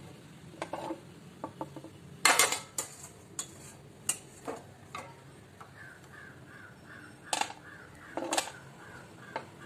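A perforated steel skimmer knocking and clinking against a steel pot while lifting out boiled palmyra sprouts, in scattered sharp strikes, the loudest cluster about two seconds in. From about six seconds in, a bird calls in quick repeated short notes.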